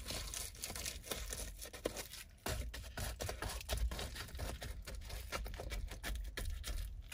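Reflectix foil bubble insulation crinkling and crackling as a cut panel is pressed and worked into a car door's window frame for a test fit, in irregular crackles throughout.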